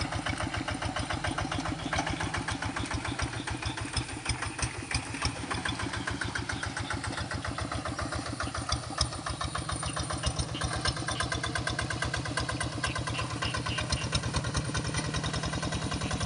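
Large rice-paddy tractor's diesel engine running with a steady, rapid beat.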